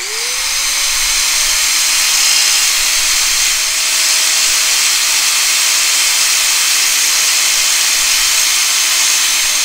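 Angle grinder spinning up and then grinding a groove into the steel jaw of a pair of locking pliers (vise grips). The motor's whine rises in pitch at the start and then holds steady under loud, continuous grinding noise.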